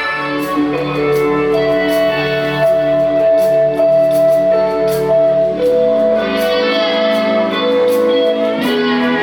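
Band music without vocals: held chords under a guitar melody, with light cymbal ticks; the chord changes about two-thirds of the way through.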